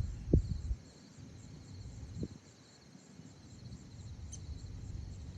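Field insects chirring steadily in a fast even pulse, with low thumps and rumbles on the microphone, the loudest about a third of a second in and another about two seconds in.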